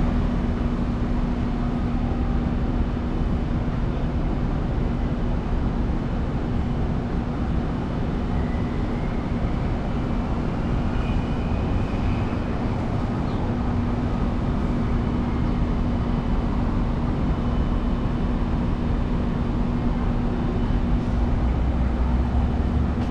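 Steady city street noise: a low rumble of traffic with a constant hum running unchanged underneath.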